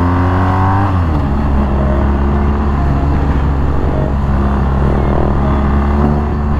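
BMW R1250GS boxer-twin motorcycle engine heard from the rider's seat: its revs drop about a second in as the throttle is eased, then it runs steadily at low speed in town traffic.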